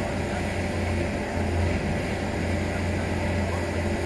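A crane's engine running steadily with a low, even hum while it lowers a 30-ton steel barge into the water.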